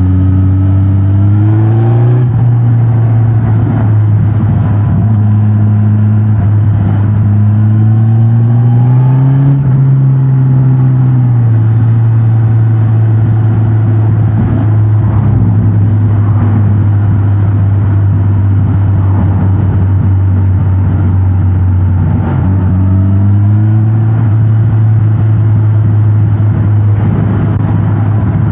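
Suzuki GSX-S1000GT's inline-four engine through its stock exhaust, ridden through town: it pulls up in pitch under acceleration about two seconds in, again from about six to ten seconds and about twenty-two seconds in, and holds a steady cruise in between, with wind and road noise underneath.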